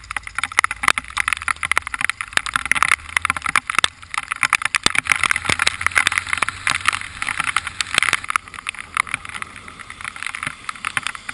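Heavy rain pelting the rider's helmet and microphone: a dense, irregular spatter of sharp taps over a hiss, with a faint low rumble beneath.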